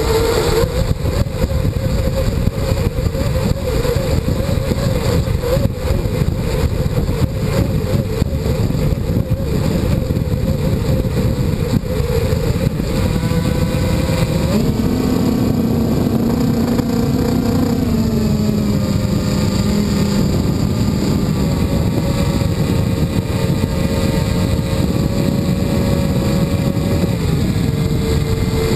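Quadcopter's electric motors and propellers droning steadily, picked up by the onboard camera's microphone along with heavy low wind rumble. The pitch steps up about halfway through as the throttle changes, then drops back and settles.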